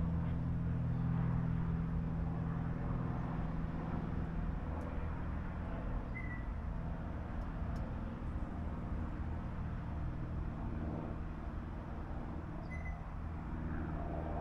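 Low, steady engine hum of a nearby vehicle, strongest for the first few seconds and then fading, over a constant outdoor background noise. A few short, high chirps come through.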